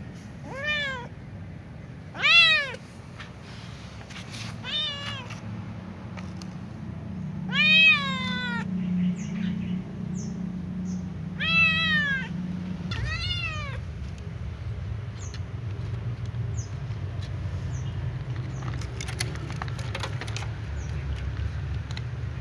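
Domestic cat meowing six times in the first fourteen seconds, each meow rising and then falling in pitch, the second and fourth the loudest, over a steady low hum.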